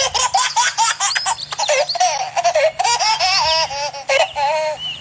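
Baby macaque squealing and chirping in a rapid run of high-pitched, wavering calls.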